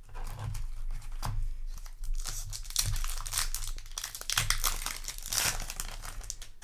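Foil booster pack wrapper crinkling and tearing as it is handled and opened, in irregular crackly bursts.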